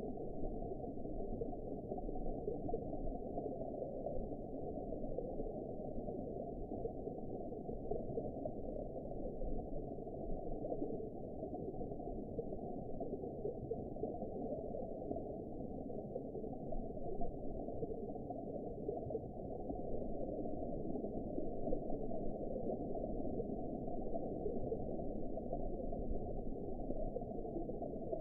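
Underwater ambience: a steady, low, even noise with no distinct events.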